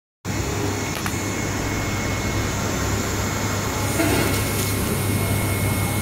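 Steady hum and whir of a running butyl tape production line, its motors and rollers turning continuously, with a strong low electrical hum underneath. A faint click comes about a second in, and the noise swells briefly about four seconds in.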